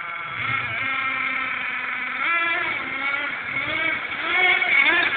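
Hong Nor X2 RC buggy's small engine running and revving up and down, its pitch rising sharply a couple of times.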